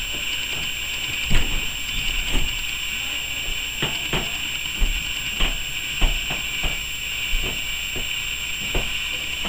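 Handling noise from a boxed action-figure package being held and turned in the hand: about a dozen light, irregular clicks and taps over a steady hiss.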